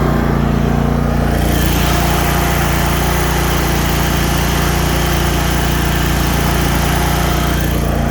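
Kohler Command Pro 23-horsepower V-twin engine of a Cub Cadet Z-Force zero-turn mower revved up and held at high throttle, running steadily with no rattling or shaking. The sound grows a little brighter about a second and a half in.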